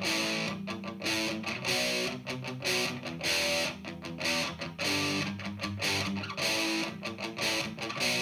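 Electric guitar played through an Exar Super Fuzz SF02 fuzz pedal: fuzzed chords and riffs in short, choppy strokes with brief gaps between them.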